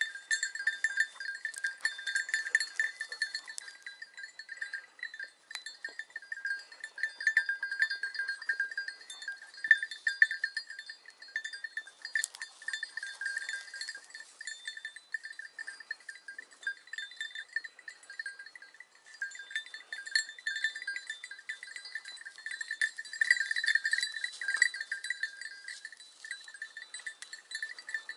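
Small bells on the collars of Segugio hare hounds jingling and clanking without a break as the dogs push through dry brush searching for scent.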